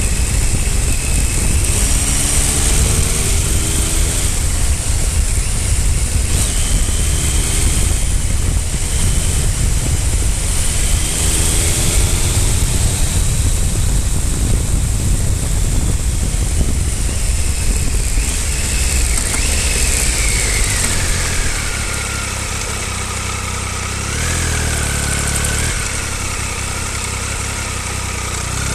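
Triumph Speed Triple 955i's inline three-cylinder engine heard from the bike on the move, under a heavy rush of wind noise. About twenty seconds in, the engine note falls and the sound drops as the bike slows. It runs quieter at low revs, then the revs rise again at the very end.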